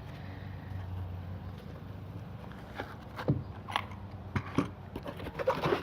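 Packaging being handled in an opened shipping box: a few short scrapes and knocks starting about halfway through, over a steady low hum.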